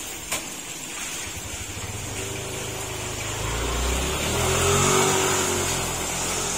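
Heavy rain falling steadily, with a motor vehicle's engine drawing near from about two seconds in, loudest near five seconds, then fading as it passes. A single sharp click comes just after the start.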